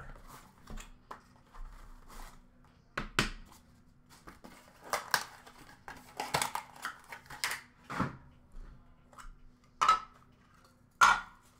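Hard plastic card cases and a card box being handled: scattered clicks, taps and light clatters as they are set down and knock together, over a faint steady hum.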